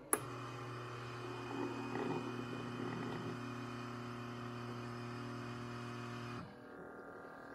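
Keurig single-cup coffee maker brewing into a mug: a click at the start, then the machine's steady low hum, which cuts off about six and a half seconds in, leaving a fainter steady hum.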